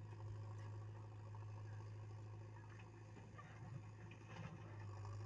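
Faint, steady low drone of diesel engines running as a backhoe loader digs soil and loads it into a tractor trolley, with a few light knocks partway through.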